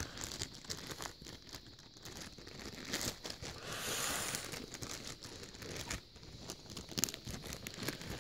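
Clear zip-top plastic bag crinkling and crackling as hands handle it, with irregular sharp crackles and a longer rustle about four seconds in.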